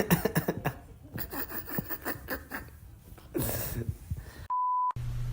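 Scattered short knocks and brief, indistinct voice-like sounds, then a short, steady beep tone near the end. A steady low hum starts right after the beep.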